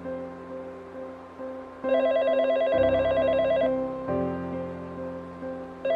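Electronic phone ringtone, a rapid warbling trill, rings for just under two seconds starting about two seconds in and starts again near the end, over soft background music. It signals an incoming phone call.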